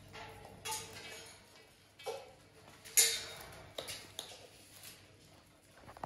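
Parrots' beaks picking and cracking seeds in a metal feeding tray: scattered sharp clicks and light metallic clinks, the loudest about three seconds in.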